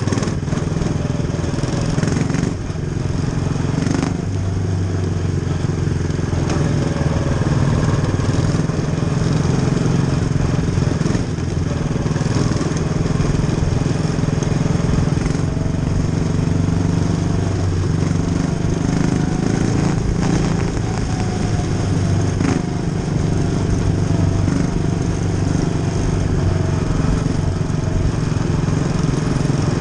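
Quarter midget race car's small single-cylinder engine running steadily at racing pace, heard from onboard, with a few short sharp knocks.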